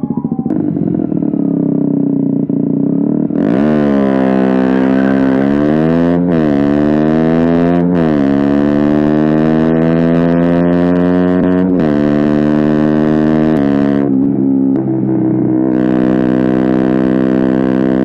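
KTM Duke 125 single-cylinder four-stroke engine through an Akrapovic silencer and GPR decat pipe, idling, then pulling away about three seconds in and revving up through three upshifts. It drops off about fourteen seconds in and revs up again near the end.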